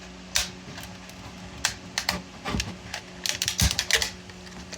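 PLA 3D-print support material snapping and cracking as it is pulled off the print by hand: a series of sharp clicks and cracks, sparse at first and bunching into a quick cluster near the end.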